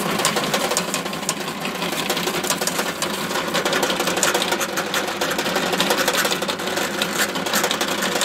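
Bench drill press running steadily with a fast, even clicking rattle, its bit drilling through the carbon-fibre wing of a model glider.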